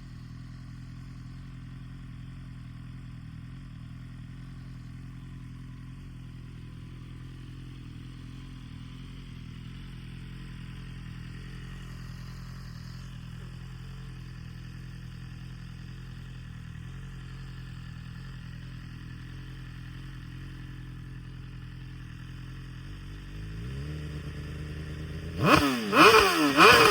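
BMW M1000RR inline-four engine breathing through an Akrapovic Evolution Line titanium full exhaust system, idling steadily. About 23 seconds in, the idle rises a little. Near the end come a few sharp throttle blips that rev up and fall straight back, much louder than the idle.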